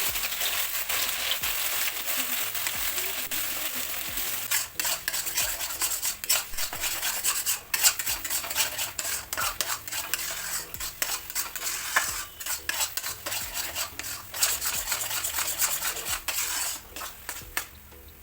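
Food frying and sizzling in a pan while a spatula stirs it, scraping and clicking against the pan over and over. The sizzle dies down near the end.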